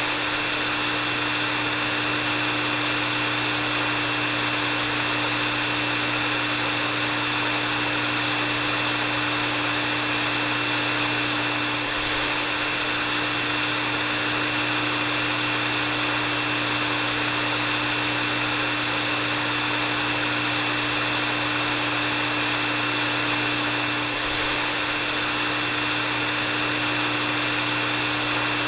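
Hair dryer running steadily: an even rush of air with a constant high whine and a low hum in it.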